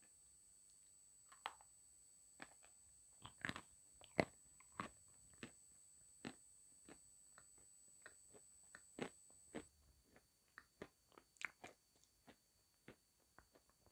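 A person biting and chewing a hard white lump coated in brown spread, close to the microphone: irregular sharp crunches, loudest about four seconds in. A faint steady high whine stops about ten seconds in.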